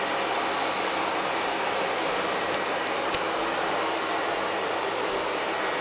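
Steady, even rushing noise with a single click about three seconds in.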